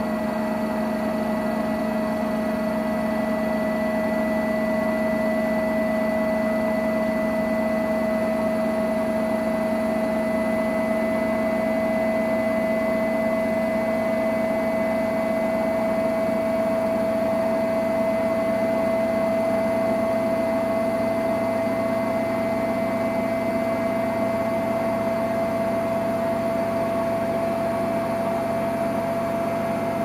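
Samsung Eco Bubble front-loading washing machine spinning its drum near the end of the cycle, a few minutes left on the timer. A steady motor whine over a low rumble, its pitch creeping slightly higher.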